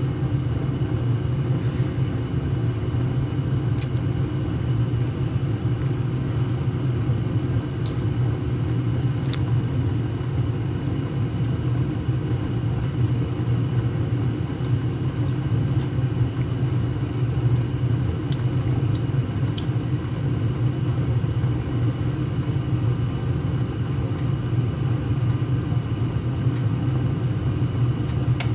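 Gas furnace running: a newly replaced inducer motor on low speed with the burners lit, giving a steady rumbling hum. The furnace is firing normally now that the inducer motor with burnt windings has been replaced.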